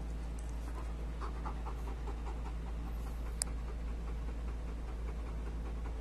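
Rottweiler–German Shepherd mix dog panting with its mouth open and tongue out, a steady run of quick breaths. A single sharp click sounds about three and a half seconds in.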